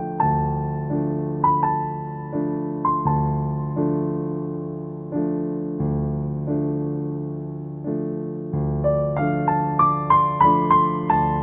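Background piano music: slow, sustained chords struck about once a second with a soft melody, and a quicker run of higher notes near the end.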